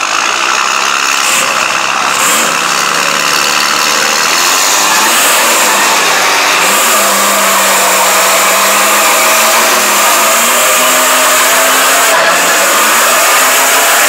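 Pickup truck engines revving hard under load during a truck tug-of-war, the engine pitch rising and falling. It gets louder about four seconds in and stays loud.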